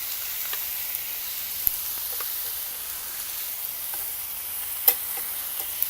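Ground chuck burger patties sizzling in a frying pan: a steady high hiss with a few sharp pops, the loudest about five seconds in.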